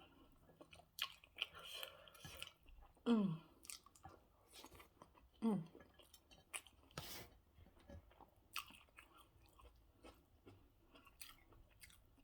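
A person chewing food close to the microphone, with scattered wet mouth clicks and smacks. Twice, at about three and five and a half seconds in, a short hum that falls in pitch.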